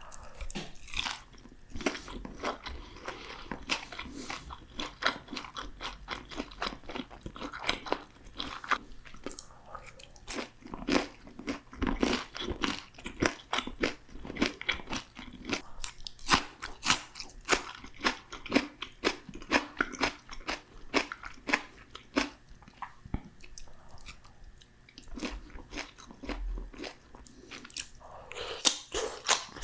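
Close-miked biting and chewing of crispy fried food: a dense, irregular run of loud crunches.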